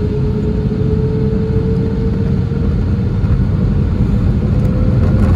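Airbus A320's turbofan engines heard from inside the cabin over the wing: a steady rumble with a hum that slowly rises in pitch and grows a little louder as thrust builds for the takeoff roll.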